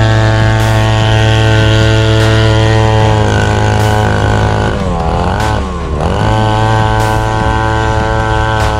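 Small mini trail motorcycle engine running at a steady speed. About five seconds in, its pitch drops as the throttle eases and then climbs back to the same steady speed.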